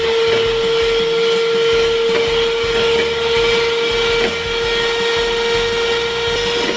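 Electrolux electric hand mixer running steadily, its beaters whisking egg whites into foam in a plastic bowl: a constant motor whine over a whirring hiss.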